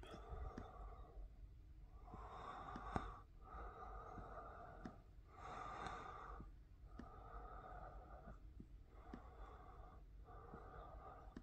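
Faint, close breathing through the nose, a soft hissy breath about every one to two seconds, with a few light clicks and one sharper click about three seconds in.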